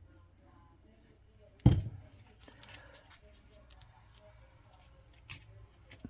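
Paper card being handled on a tabletop: one sharp knock a little under two seconds in, then faint rustling and a few light taps.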